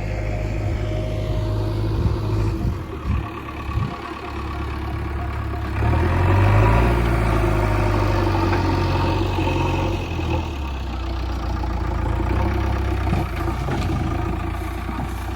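JCB 3DX backhoe loader's diesel engine running steadily, revving up about six seconds in and holding at the higher speed.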